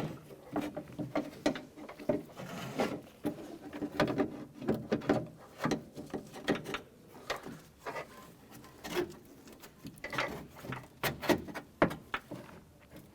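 A window glass track being fed back up inside a car door shell: irregular knocks, taps and scrapes of the track against the door's sheet metal, with rustling handling noise between.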